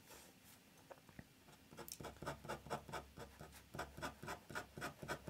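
Pen scratching on paper in short, quick hatching strokes, faint. A couple of single strokes come first, then from about two seconds in a steady run of about four or five strokes a second.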